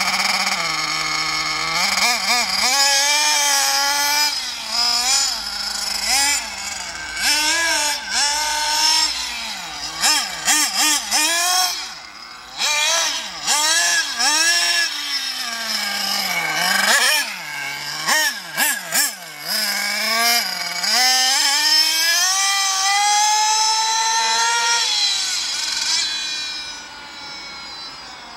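Two-stroke nitro glow engine of a 1:8-scale Carson Specter RC car, revving up and down over and over as it is driven, with quick throttle lifts between the bursts. It fades near the end as the car moves away.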